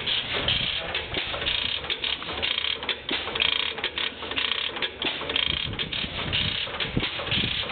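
Vintage stationary gas engines running, a dense mechanical clatter of rapid, irregular clicks and knocks.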